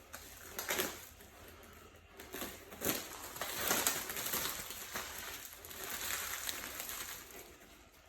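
Hands working parts in an engine bay: scattered knocks and clicks with crinkling, rustling noise.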